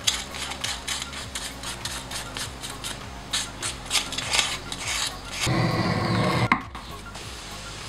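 Quick rasping strokes of a hand tool rubbed along the edge of a piece of leather, about three or four a second. About five and a half seconds in comes a louder, rougher scrape lasting about a second, cut off by a sharp click.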